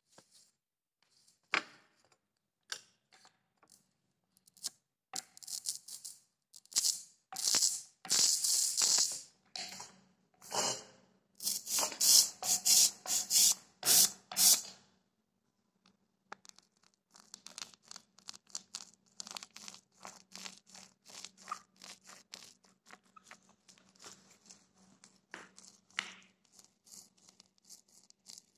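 A hand brayer rolls out white printing ink on a glass slab in repeated tacky, crackling, hissing strokes, loudest in the first half. Later comes a softer, denser clicking rattle as an inked roller runs over plastic fuse beads, with a faint low hum underneath.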